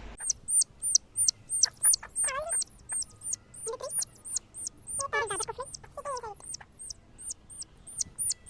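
Newly hatched country chicks peeping: a quick, steady run of short, high peeps, about three a second, with a few lower calls that fall in pitch mixed in.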